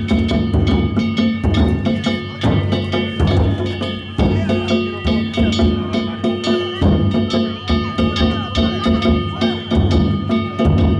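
Danjiri festival percussion (narimono): a taiko drum beaten in a quick, steady rhythm, with hand-struck metal gongs (kane) ringing over it.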